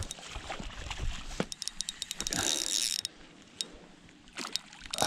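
Spinning reel being cranked to bring in a hooked salmon trout: runs of fast mechanical clicks, with a short louder rushing stretch in the middle.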